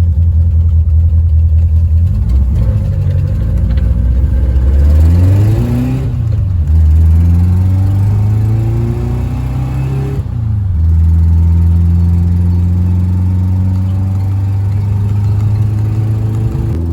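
1973 Volkswagen Karmann Ghia's air-cooled flat-four engine pulling the car along. The engine note climbs and falls back twice, in the pattern of accelerating through gear changes, then runs at a steady speed for the last several seconds.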